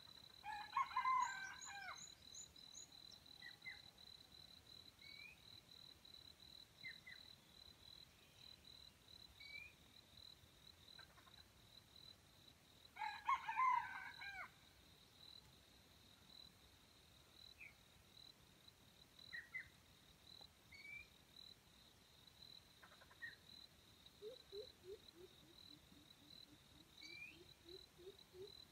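Red junglefowl rooster crowing twice, about twelve seconds apart, each crow short and over in about a second and a half. A steady high insect drone runs underneath, with scattered small bird chirps.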